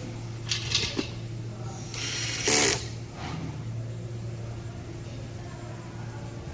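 Plastic parts of a robot vacuum being handled and fitted during reassembly: a few sharp clicks about half a second to a second in, then a louder rattling scrape about two and a half seconds in, over a steady low hum.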